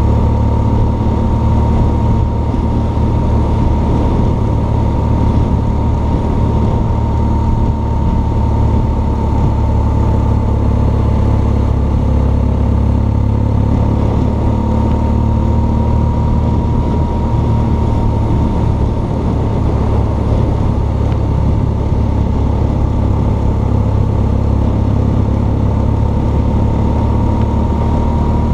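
BMW R1200 GS Adventure's boxer-twin engine running at a steady cruise, heard from on board with heavy wind rumble and a steady high whine above the engine note.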